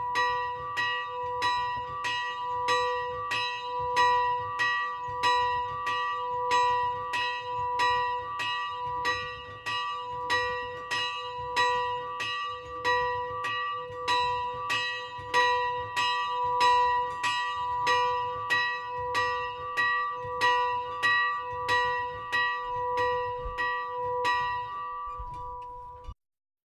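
A small 35 kg bronze church bell tuned to B (h2), cast by Ráfael Szlezák in Budapest in 1957, swinging and struck by its clapper about twice a second, each stroke ringing on into the next. The ringing cuts off abruptly near the end.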